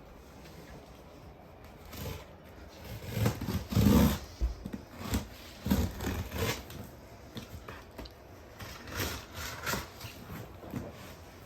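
Cardboard shipping box being cut and opened by hand: irregular scrapes, rustles and knocks of packaging, loudest about four seconds in.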